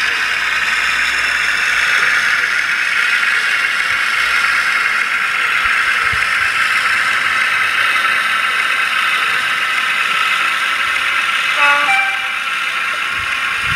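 Sound-fitted model Class 52 'Western' diesel locomotive running, its DCC sound decoder playing a steady diesel engine sound through a small onboard speaker. A short horn blast sounds near the end.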